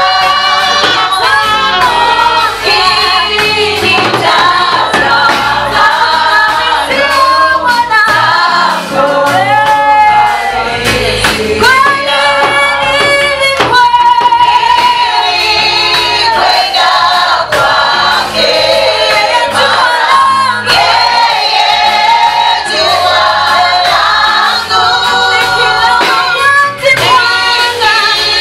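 A choir singing a Swahili Christian hymn, voices carrying a continuous melody.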